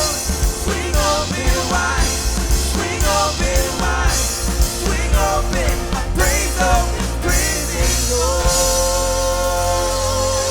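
Live worship band playing a rock-style song with drums, bass and singing; about eight seconds in, the music settles onto a long held note.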